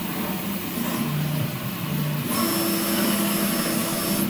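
Stepper motors of an Original Prusa i3 MK3S+ 3D printer humming as the bed and print head move between points during its automatic bed calibration. The hum comes as short held tones that change pitch with each move, and a high whine joins a little past halfway.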